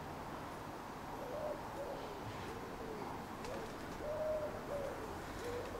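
A pigeon cooing: a run of soft, low coos that rise and fall, starting about a second in.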